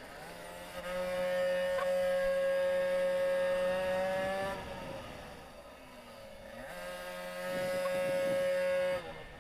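40 cc water-cooled minibike two-stroke engine at high, steady revs for about four seconds. It falls away as the throttle closes for a bend, then climbs back to high revs and drops off sharply near the end.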